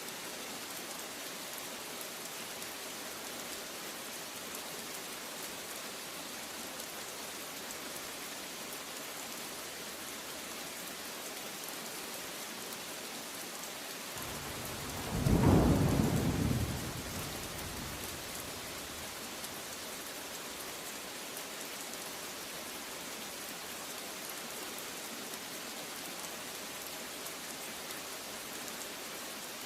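Steady downpour of rain, with one clap of thunder about halfway through that swells quickly, rumbles for a few seconds and fades away.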